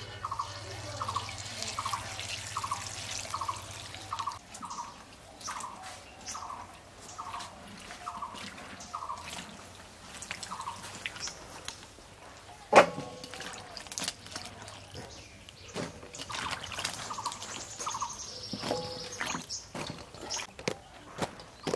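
Cut eggplant pieces being rinsed and handled by hand in water in steel bowls: splashing, dripping and pieces clicking against the metal, with one loud clank of a steel bowl about 13 seconds in. A repeated short chirp, about twice a second, sounds over the first half.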